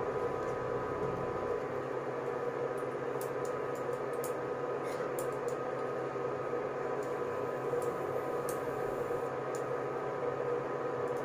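Steady hum and whine of an induction cooktop running under a pan, with a few light clicks and cloth rustles as a lid wrapped in a kitchen towel is set over the pan to seal it.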